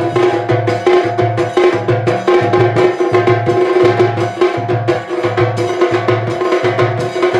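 Tassa drum ensemble playing. The large barrel bass drum, struck with a padded stick, keeps a steady low beat about every two-thirds of a second, under fast, dense stick strokes on the smaller drums.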